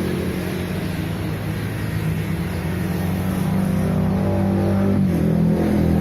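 Panasonic Orbit F-EQ405 ceiling fan running, with a steady electric motor hum.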